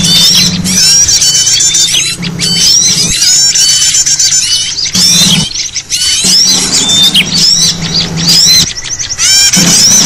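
Dense, overlapping chorus of many small songbirds chirping and whistling fast, high calls with no pause, over a steady low hum. It is a bird-lure ('suara pikat') recording, played to draw wild small birds in.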